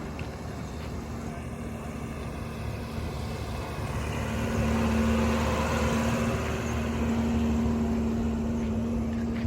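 Modified Maruti Gypsy's engine running with a steady note, growing louder about four seconds in and staying loud.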